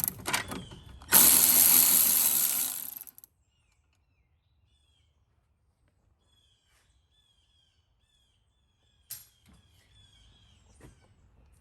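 A ratchet removing a bolt: a few clicks, then a loud two-second run of the tool about a second in. After it, faint repeated bird chirps and a few scattered clicks.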